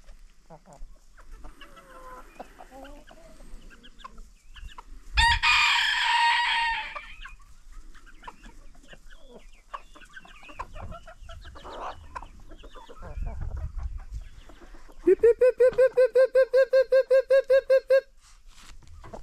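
Farmyard chickens and roosters clucking, with a loud rooster crow about five seconds in lasting about two seconds. Near the end comes a loud, rapid string of about fourteen short, pitched calls at about five a second, lasting about three seconds.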